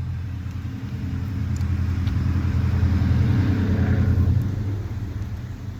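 A motor vehicle's low engine rumble swells to its loudest about four seconds in, then drops away, as a vehicle drives past.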